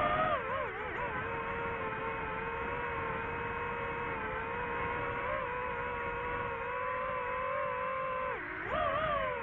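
DJI FPV drone's motors and propellers whining at a steady pitch, with quick rises and falls in pitch about a second in and again near the end as the throttle changes.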